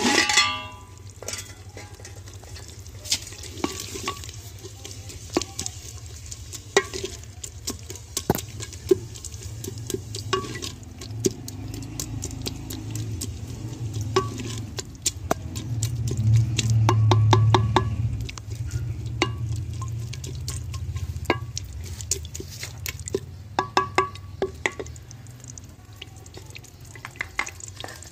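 A spoon stirring and scraping in a clay pot as onions and chilli fry in oil, with many short clicks and scrapes against the pot. A low rumble swells a little past the middle.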